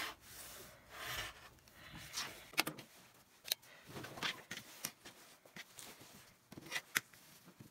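Rotary cutter rolling through denim along a ruler for about a second, then rustling of the heavy jeans fabric being moved, with a scatter of light clicks and taps.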